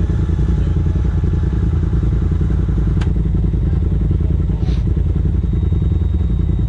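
Polaris RZR side-by-side engine idling steadily while the machine stands still, with a single sharp click about three seconds in.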